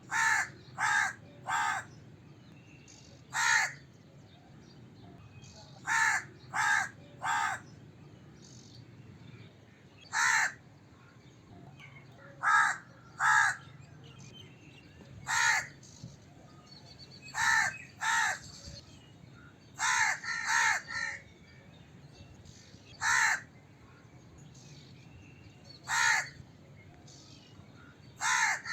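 A crow cawing repeatedly: short harsh caws, some single and some in quick runs of two or three, with pauses of a second or more between.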